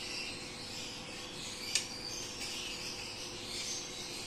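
Insects chirring steadily in a high, slightly pulsing hiss, with a single sharp click a little under two seconds in.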